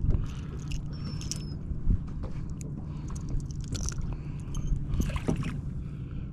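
A boat's engine running steadily at idle, a low hum, with scattered knocks and clicks on top, the loudest near the start, about two seconds in and about five seconds in.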